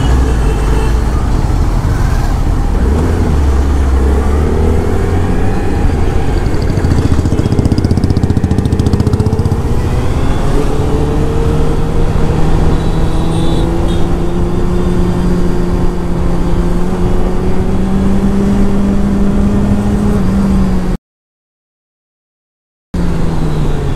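Suzuki Hayabusa's inline-four engine running at steady moderate revs while the bike is ridden, with wind noise on the microphone. In the second half the revs climb slowly. Near the end the sound cuts to total silence for about two seconds, then returns.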